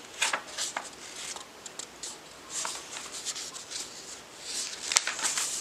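Paper pages of a picture book being turned and handled: short crisp rustles and soft clicks, with a busier rustle near the end.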